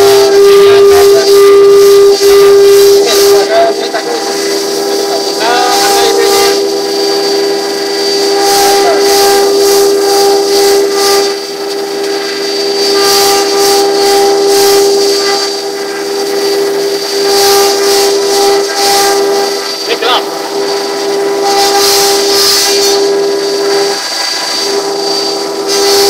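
CNC router spindle running with a steady high whine while its bit cuts a board, the cutting adding hissing noise that swells and fades every second or two. The whine drops out briefly near the end.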